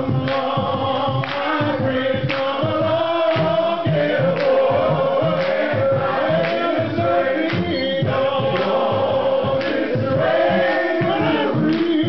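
Men's gospel choir singing with a male lead vocalist on a microphone, over a steady beat about once a second.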